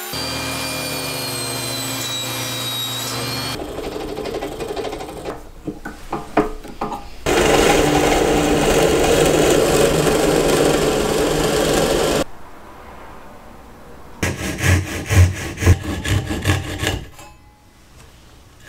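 A run of hand-tool and power-tool sounds on wood. First a motor whine that glides in pitch, then scraping strokes on wood. Then about five seconds of loud steady noise from a power tool cutting or sanding, and after a short pause a burst of quick strokes with low knocks, about three a second.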